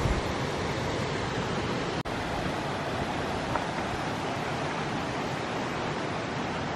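River water rushing steadily over a low stone weir, with a brief dropout about two seconds in.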